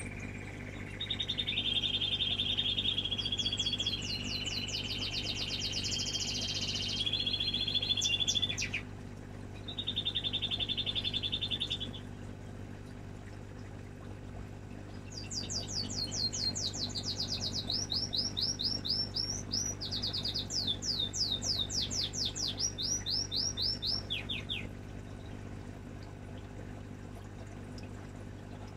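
A songbird singing long, rapid trills of quickly repeated high notes, in two bouts with a break of a few seconds between, over a steady low hum.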